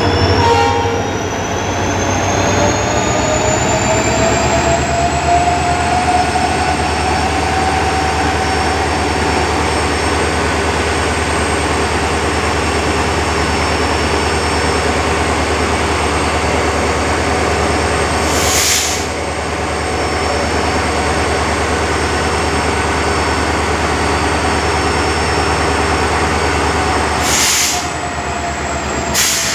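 Indian Railways WDP4D diesel locomotive, with its EMD 16-cylinder 710 two-stroke engine, running with a steady low hum. A whine rises in pitch over the first several seconds and then holds steady. There is a short burst of noise about two-thirds of the way through and two more near the end.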